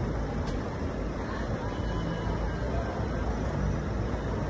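Steady low rumble of city street traffic noise.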